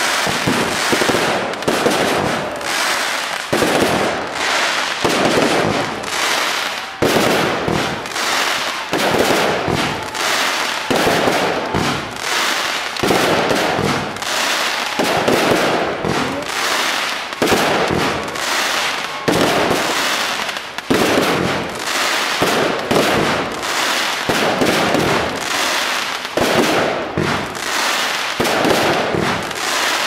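Fireworks display going off without let-up: a rapid, dense run of bangs and crackling from shells and cakes bursting overhead.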